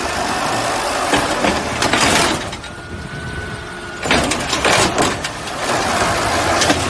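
Garbage truck running, an uneven mechanical noise that surges and eases, with a thin steady whine for about a second and a half near the middle.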